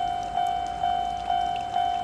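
Japanese railway level crossing warning bell ringing, about two strikes a second, each strike fading into the next: the alarm that a train is approaching.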